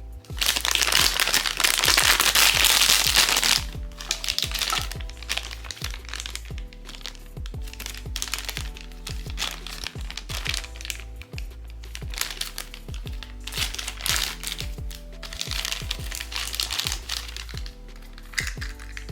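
Blind box packaging crinkling as it is torn open and handled: a loud crinkling for about three seconds near the start, softer rustling after, and a second crinkling spell later on. Background music with a steady beat plays throughout.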